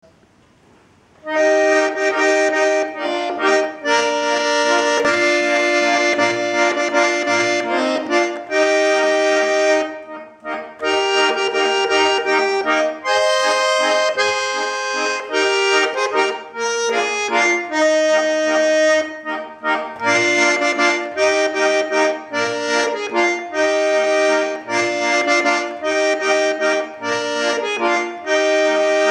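A Schwyzerörgeli (Swiss diatonic button accordion) plays a Christmas melody over sustained chords, with short bass notes recurring underneath. It starts a little over a second in.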